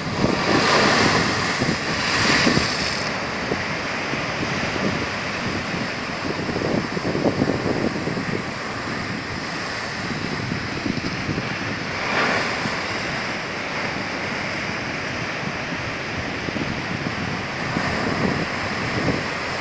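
Big ocean swell breaking against and over a wharf, a steady rush of surf with louder crashes of spray in the first few seconds and again about twelve seconds in. Wind buffets the microphone.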